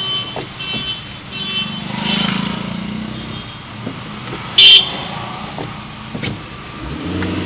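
Road traffic: motorcycle and machine engines running, with short horn toots early on and one sharp, loud horn blast about halfway through.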